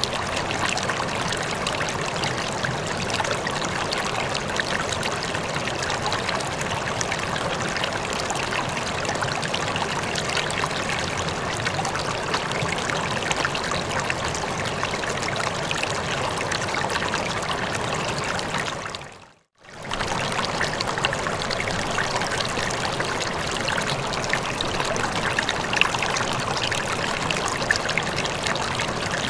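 River water flowing in a steady, dense rush. About two-thirds of the way through it fades out to silence for under a second and comes straight back.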